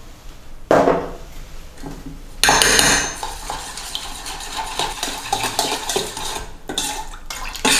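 Metal spoon stirring a thin sauce in a stainless steel bowl, with quick small clinks against the bowl's sides. A sharp knock about a second in, as a small steel jug is set down on the wooden worktop, and a louder clatter when the spoon first goes into the bowl.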